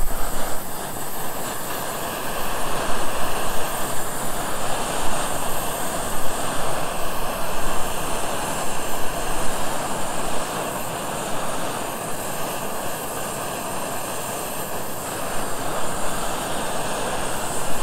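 LPG (gasol) camping burner running at full flame with a steady rushing roar that swells and eases a little, heating a pot of water that is starting to steam but is not yet boiling.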